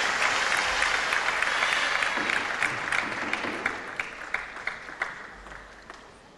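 Spectators applauding after a table tennis rally: dense clapping that thins to scattered single claps and dies away about five to six seconds in.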